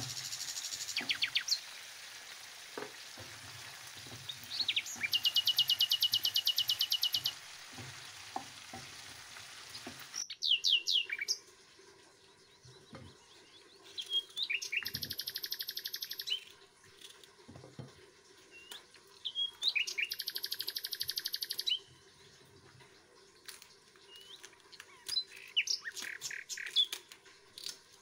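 Songbird singing: short chirps and a rapid trill about two seconds long, repeated three times. For the first third a pan of meat and potatoes sizzles while it is stirred; the sizzle stops suddenly and a faint steady hum remains.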